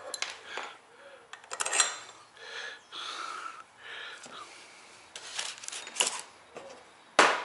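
Light metallic clinks, taps and handling noises of a metal propeller and tools being worked on at the bench, with one sharp click near the end.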